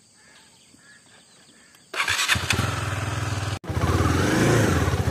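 KTM 390 Duke's single-cylinder engine starting about two seconds in and settling into a steady idle.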